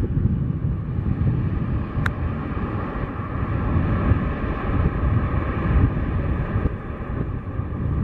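Boeing 737-700's jet engines rumbling steadily during the landing roll-out just after touchdown, with wind buffeting the microphone. There is one brief sharp click about two seconds in.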